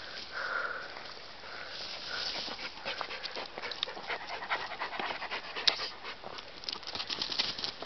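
A border collie–kelpie cross panting, with many short, irregular crackling rustles of tall grass from about three seconds in as the dog springs through it.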